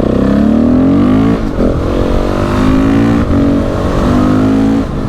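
KTM 690 SMC R single-cylinder supermoto engine accelerating hard. The revs climb, break briefly at two upshifts (about one and a half and three and a half seconds in), then drop near the end as the throttle closes.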